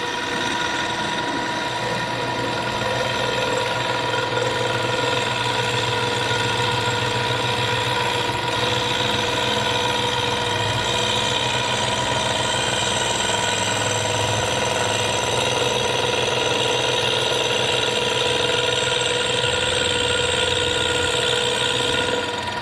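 Vertical milling machine running steadily, its end mill cutting about ten thousandths off the face of a cast John Deere B carburetor housing: a steady spindle whine with the rough chatter of the cut. It drops off near the end.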